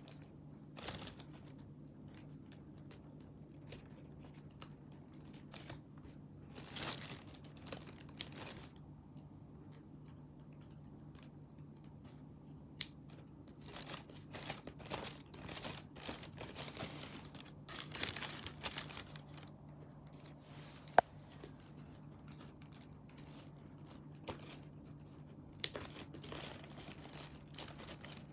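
Steel scissors snipping through the roots of a coralberry (manryō) growing out of the drainage holes of a plastic pot, in irregular snips with the plastic bags underneath crinkling, and a few sharp clicks of the blades. A faint steady hum lies underneath.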